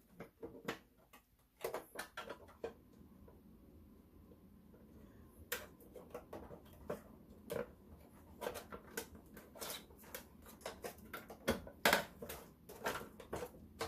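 Irregular clicks, taps and knocks of hands and tools handling the plastic covers and parts of an Elna Diva sewing machine as it is taken apart.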